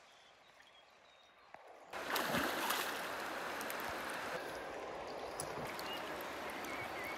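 Very faint for about two seconds, then the steady rush of flowing river water starts abruptly.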